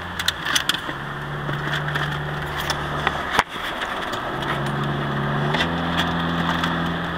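Car engine and road noise heard from inside the cabin while driving, the engine's hum shifting in pitch a few times as its speed changes, with scattered light clicks.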